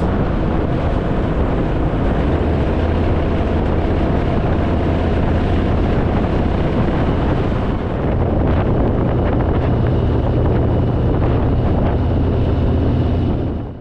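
Harley-Davidson Fat Boy's V-twin engine running steadily on the move, with heavy wind buffeting the microphone; it cuts off abruptly at the very end.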